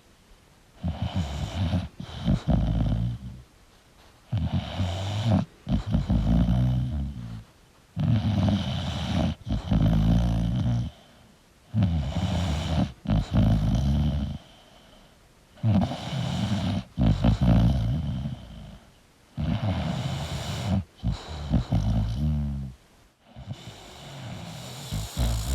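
An English bulldog snoring in its sleep: about seven long, deep snores roughly four seconds apart, each lasting two to three seconds, with quiet pauses between breaths.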